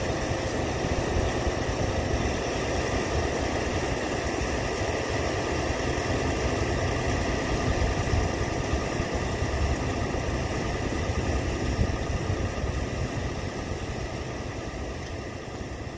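John Deere 9630T tracked tractor's 530 hp diesel engine running steadily under load, pulling a 35-foot John Deere 2680H high-speed disk through the field, with the noise of the disk blades working the soil. The sound grows fainter over the last few seconds.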